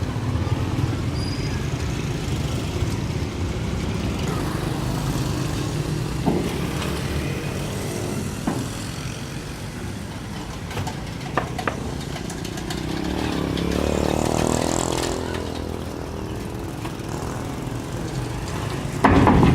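Steady low engine rumble, with a few sharp clicks. About two thirds of the way through, an engine note swells and fades, and a loud knock comes just before the end.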